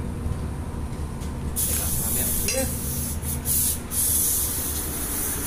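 Compressed air hissing at a pneumatic impact wrench and its air hose, starting about one and a half seconds in, with two short breaks near the middle.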